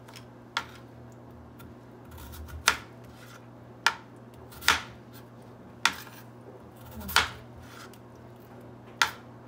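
Chef's knife chopping peeled raw potatoes on a wooden cutting board: about seven separate chops, each a sharp knock of the blade on the board, roughly one every second or so.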